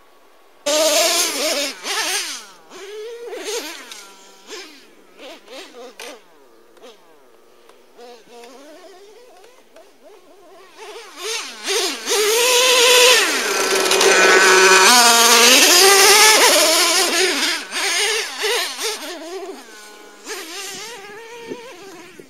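Traxxas T-Maxx nitro RC truck's modified 3.3 two-stroke glow engine with a drilled-out resonator pipe, starting suddenly just under a second in. It revs in short throttle bursts, its pitch rising and falling. About halfway through it is held at high revs as its loudest stretch, then tails off toward the end.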